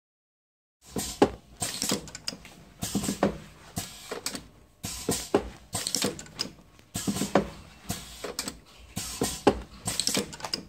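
Single-colour pad printing machine cycling, its mechanism clacking in a repeating pattern of knocks and clicks about every two seconds. It starts about a second in.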